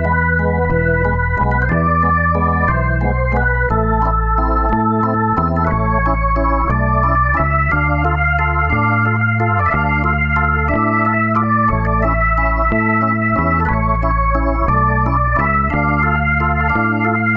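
Organ music: held chords over a low bass line, changing about every second.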